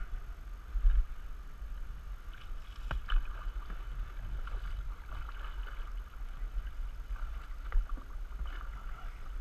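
Canoe paddling: paddle strokes dipping and pulling through river water, with water splashing and lapping around the canoe over a steady low rumble. A few short sharp knocks stand out, the loudest about a second in, just after three seconds and near eight seconds.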